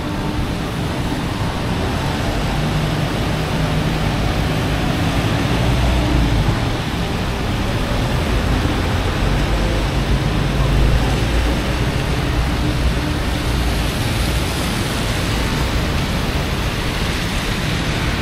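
Steady heavy rain on a city street with cars driving by on the wet road, their tyre hiss and engine rumble swelling about six seconds in and again around ten to eleven seconds.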